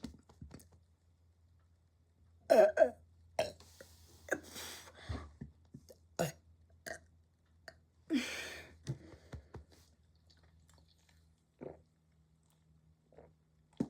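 A person burping several times in a row: the loudest burp comes about two and a half seconds in and another long one about eight seconds in, with shorter burps and small mouth sounds between.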